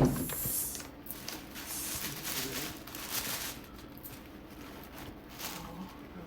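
Packaging rustling and crinkling as a handbag is unwrapped, starting with a sharp, loud rustle and coming back in several spells.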